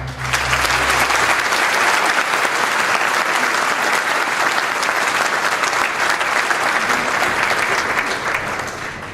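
Large audience applauding, a dense crackle of many hands clapping that starts right after the music ends, with the music's last low notes dying away in the first second or so. The clapping fades toward the end.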